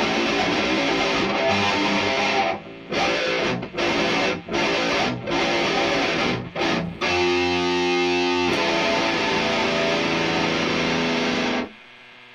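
Electric guitar through a Boss DS-1 distortion pedal, playing chugging distorted chords broken by short stops. About halfway through, held chords ring out, and the last one is cut off sharply near the end.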